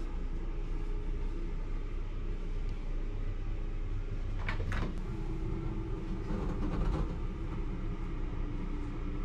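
Steady low rumble with a faint hum, and a short click about four and a half seconds in.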